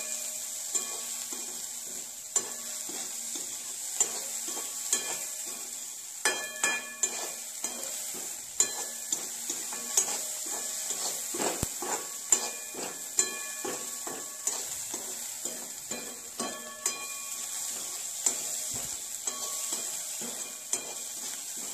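Chopped onion sizzling in hot oil in a kadhai while it is stirred and fried to brown. A slotted spatula scrapes and knocks against the pan about twice a second, and each knock rings briefly.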